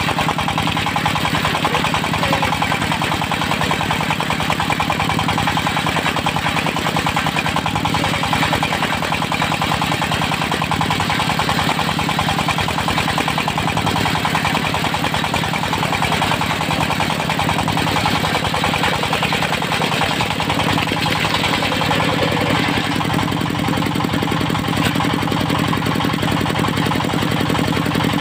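Diesel engine of a portable circular sawmill running steadily at constant speed, with a fast even firing rhythm.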